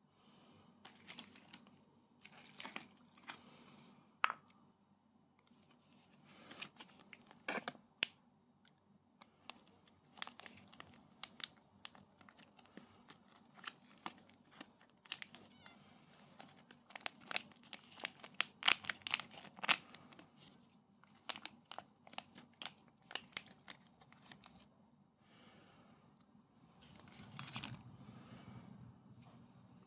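Plastic snack pouch of pickled chicken feet crinkling and tearing as it is opened by hand: a long run of sharp crackles, busiest in the middle, then a softer rustle near the end.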